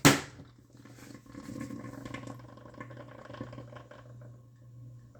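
A sharp click at the start, then a drip coffee maker brewing: a low steady hum with irregular bubbling as the water heats and is pushed through.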